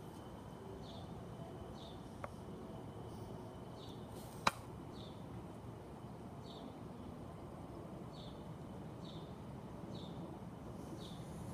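Short, high chirps repeat about once a second, each dropping slightly in pitch, over a low steady background noise. A sharp click sounds about halfway through.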